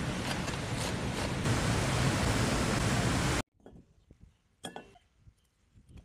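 Steady rushing of a fast mountain stream, with a knife chopping wild leeks on a steel tray a few strokes a second. The rushing cuts off suddenly about three and a half seconds in, leaving a quiet stretch with faint clicks and a single sharp knock.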